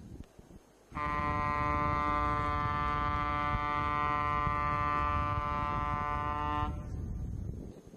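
A train ferry's horn sounding one long steady blast of about six seconds as the ferry approaches the quay. It starts suddenly about a second in, over a low rumble.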